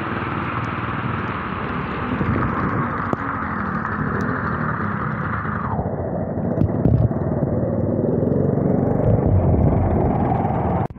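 Steady rumble and rushing noise of riding a motorbike through traffic on a rain-soaked, flooded road. The sound turns duller about halfway through.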